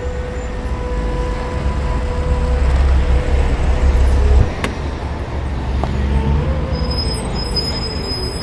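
Honda City sedan driving up and coming to a stop, its engine a low rumble over street traffic. The rumble builds, then drops away with a sharp click about four and a half seconds in.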